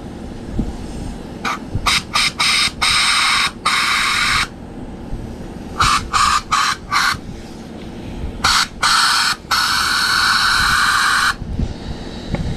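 Compressed-air spark plug sandblaster hissing in repeated bursts as abrasive is blasted onto a dirty spark plug's firing end: three runs of short blasts, each ending in a longer blast, the last nearly two seconds long.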